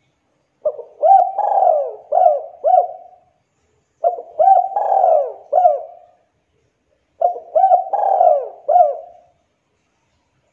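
Spotted dove (tekukur) cooing: three phrases of several short coos each, with pauses of about a second between phrases.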